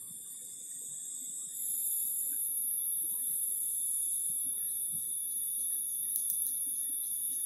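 Insects droning: a steady high-pitched buzz that grows louder about a second and a half in, over a fainter steady lower tone.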